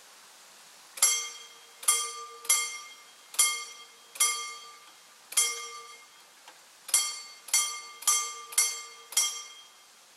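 Mechanical pre-warning bell of a level crossing ringing in single, unevenly spaced strikes, about eleven in all, each ringing out and fading. It is the warning that the crossing's mechanical barriers are being lowered, and it falls silent as the booms come fully down.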